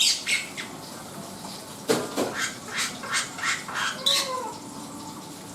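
Black-winged myna (jalak putih) calling: a short burst of harsh notes at the start, then after a pause a run of harsh notes, about three a second for two seconds, ending in a slurred squawk.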